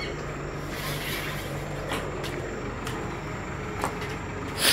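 Milk tanker truck's engine idling with a steady low hum, with a few light clicks over it.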